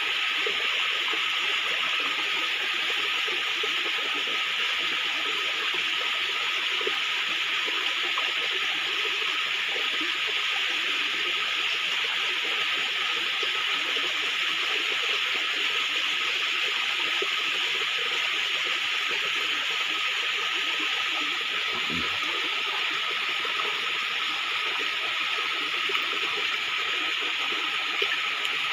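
Shallow stream water running steadily over rocks, a constant rushing hiss.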